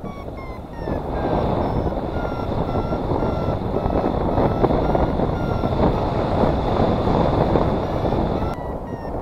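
Wind rushing over the camera microphone in flight, with a paragliding variometer beeping at about one and a half beeps a second. The beeps drop in pitch in the first second or so, hold steady, then jump higher near the end; a vario beeps like this while the glider is climbing in lift.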